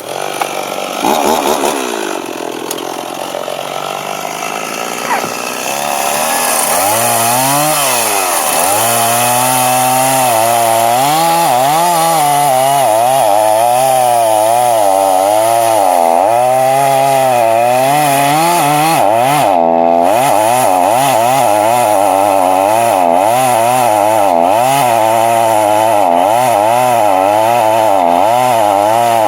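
Chainsaw making the bottom cut of a felling notch. It runs from about six seconds in at a louder, steady level, its engine pitch rising and falling over and over as it works through the wood, with a brief dip about twenty seconds in.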